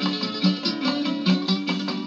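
Instrumental acoustic string-band music: guitar and other plucked strings picking notes at a brisk, even beat.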